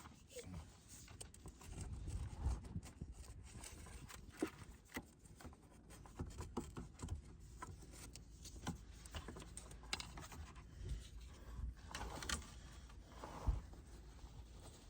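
Irregular rustling, scraping and scattered light clicks and knocks of hands working on PEX water lines.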